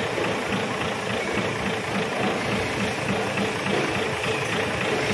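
Mitsubishi Fuso 8DC11 V8 diesel engine idling steadily.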